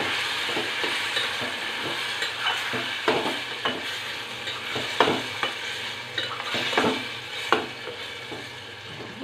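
Flat steel ladle stirring and scraping thick ground masala paste through sizzling vegetables in a metal pot, with a steady sizzle under irregular scrapes against the pot. The paste is being sautéed to cook out its raw smell.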